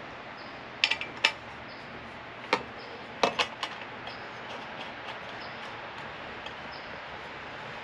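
Small hard parts clicking and knocking as they are handled, about six sharp clacks in the first four seconds, then only a steady low hiss.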